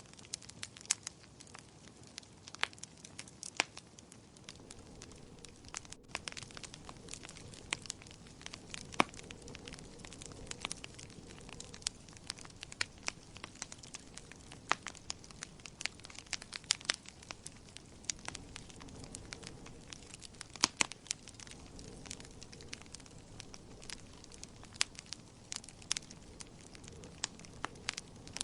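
Wood fire in a fireplace crackling: irregular small pops and snaps over a low steady hiss, with a few louder pops.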